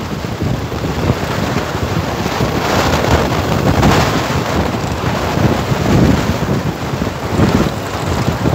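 Wind buffeting the microphone of a camera riding along on a mountain bike, a loud rushing noise that surges and eases in uneven gusts.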